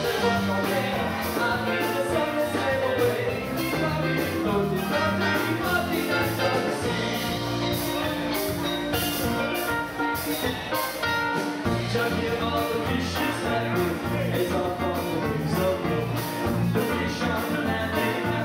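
Live band playing a calypso-flavoured cover song: acoustic guitar, electric bass and drums with a lead vocal over a steady beat.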